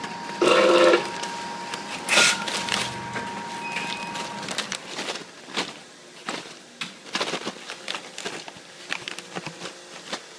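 Sealed plastic snack bags filled with chips being handled and squeezed, crinkling and rustling in a run of sharp crackles. About half a second in there is a brief loud pitched sound, and a faint steady tone underneath stops about four seconds in.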